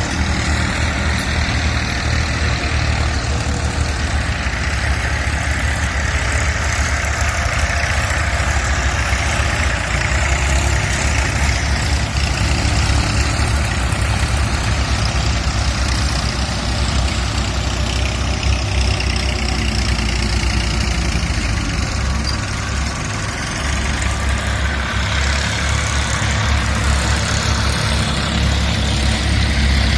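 Heavy engine running steadily at an even speed.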